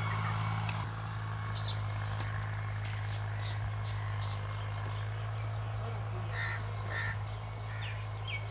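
Birds calling outdoors: short calls scattered through, with two fuller calls about six and seven seconds in, over a steady low hum.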